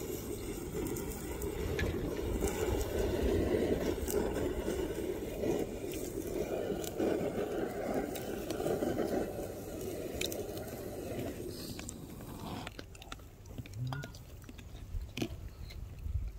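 Handheld butane gas torch burning with a steady rushing flame, aimed into a small bucket barbecue grill, shut off abruptly about twelve and a half seconds in. A few light clicks and taps follow.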